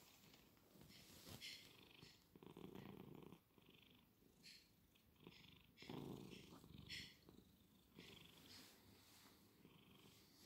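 Domestic tabby cat purring faintly, with the purr coming through in two short spells, a little over two seconds in and again around six seconds in. A few faint light ticks are heard among them.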